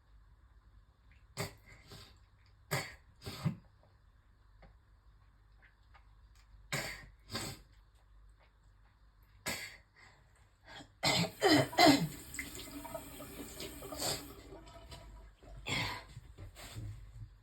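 A woman coughing, one cough every second or two, then a harder fit of coughing and gagging about eleven seconds in, the loudest part. A steady hiss follows it. The coughing fit was set off while brushing her teeth and turned to nausea and spitting up phlegm.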